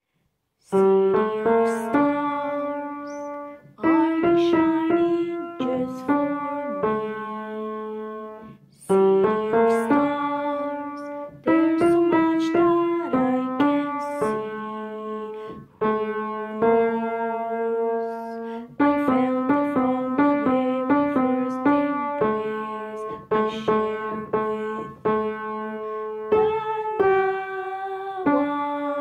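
Upright piano played by hand: a slow melody over held chords, in phrases of a few seconds, each note ringing on after it is struck. The playing starts about a second in.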